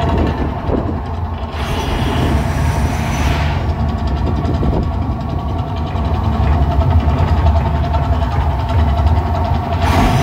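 Mirage volcano eruption show: a steady deep rumble, with a broad rush of gas flame flaring near the end as a fireball erupts from the volcano top.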